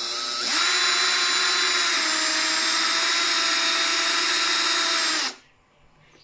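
Makita drill spinning a hole saw through the plastic underside of a Ford Everest side mirror housing. It runs slowly at first, speeds up about half a second in, runs steadily while cutting, then stops a little after five seconds.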